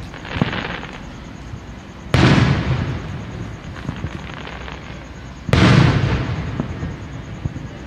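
Aerial fireworks shells bursting: two loud booms about three seconds apart, each dying away over a second or so, with a smaller pop near the start and scattered crackles.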